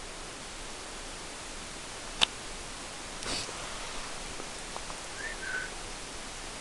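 Quiet outdoor ambience: a steady hiss, with a single sharp click about two seconds in and a faint short chirp about five seconds in.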